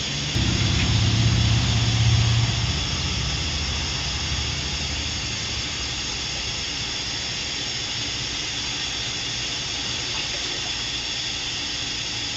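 Steady hiss of a propane burner under an enamel water-bath canner, with the canner's water at a boil. A low rumble swells for the first two or three seconds, then fades into the even hiss.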